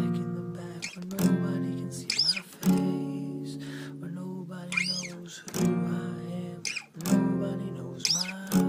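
Acoustic guitar strumming chords, a sharp strum about every second or two with the chord ringing on in between.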